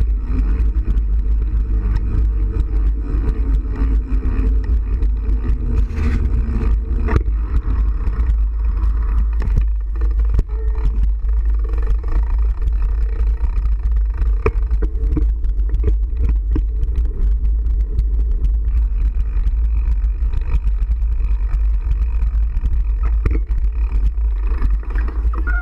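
A motor vehicle running steadily, with a heavy low rumble throughout.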